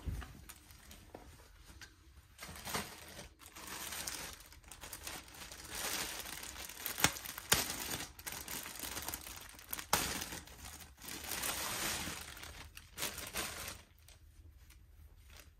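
Clear plastic poly bag crinkling and rustling as it is handled and opened, in irregular bursts with a few sharp crackles, dying down near the end.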